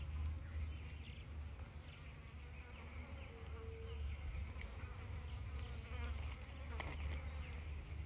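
Flying insects buzzing close to the microphone, as a steady low hum.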